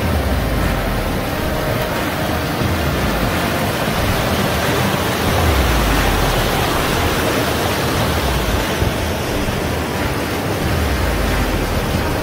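Strong wind blowing over the microphone: a loud, steady hiss with low buffeting rumbles that surge about every five seconds.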